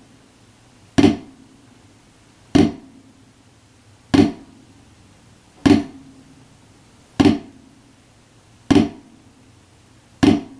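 Wooden drumsticks striking a rubber drum practice pad, playing flams: seven single sharp hits, one about every second and a half.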